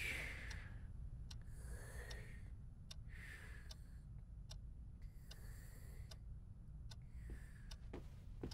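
A ticking clock, faint and even at a little more than one tick a second, over soft slow breathing from sleeping students.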